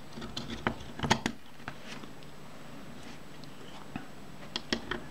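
Light metal clicks and taps as the chrome top cover of a Kodak Retina Ia camera is seated onto the body by hand: a few irregular clicks about a second in and a few more near the end.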